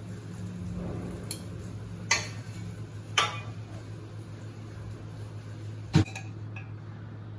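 Kitchen utensils and dishes clinking and knocking, about four separate strikes with the loudest about six seconds in, over a steady low hum.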